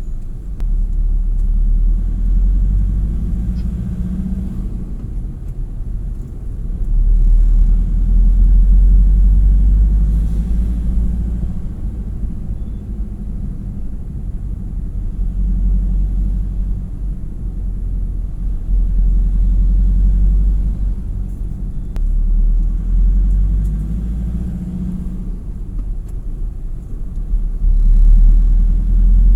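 A loud low rumble that swells and fades every few seconds, loudest around 7 to 11 seconds in and again near the end.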